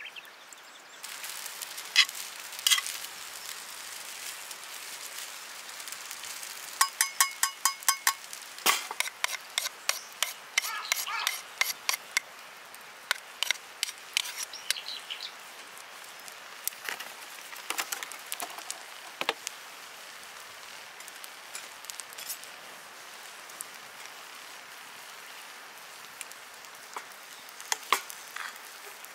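Scattered light clinks and taps over a steady hiss, with a rapid run of ringing taps about seven seconds in.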